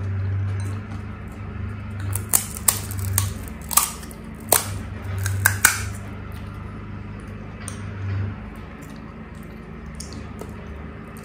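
Crisp, hollow pani puri shells cracking as fingertips break holes in their tops: a cluster of sharp cracks and crackles in the middle, followed by quieter handling.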